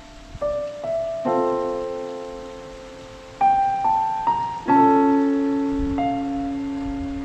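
Background piano music: single notes and then chords struck at an unhurried pace, each left to ring and fade.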